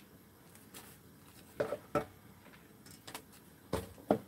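About five short, light knocks and clicks, the loudest near the end, from a plastic container and pot being handled while fresh noodles are dropped into boiling water.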